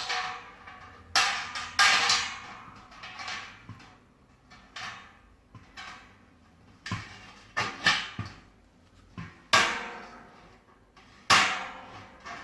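Parts of a stainless steel home-brewing mash kettle being handled and set down: about a dozen sharp, irregular clanks and knocks, each ringing briefly. The loudest come a second or two in and near the end.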